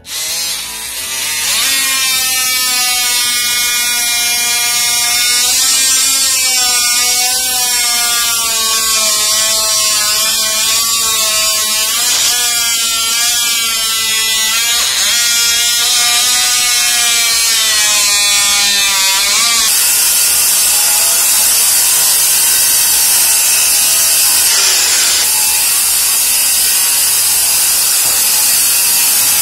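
Oscillating multi-tool with a plunge-cut blade cutting into a hardwood floorboard: a loud buzzing whine whose pitch wavers as the blade loads up in the wood. About two-thirds of the way through, the whine gives way to a harsher, hissing sawing sound.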